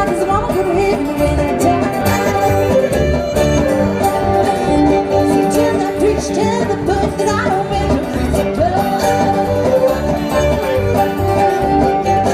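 Live bluegrass band playing an up-tempo tune: banjo, fiddle, acoustic guitar and upright bass, with the bass pulsing steadily underneath.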